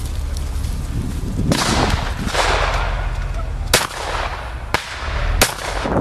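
Rifle fired four single shots at uneven intervals, the first about a second and a half in, each shot echoing, over a steady low rumble.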